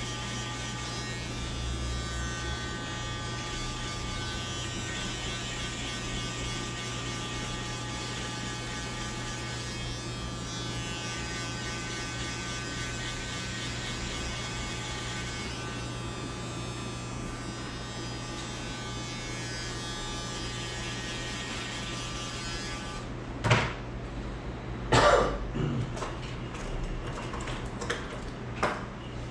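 Electric hair clippers running with a steady buzz during a fade cut, switching off near the end, followed by a few sharp clicks.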